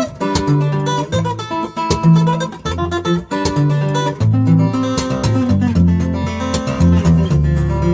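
Background music: acoustic guitar playing, with plucked and strummed notes.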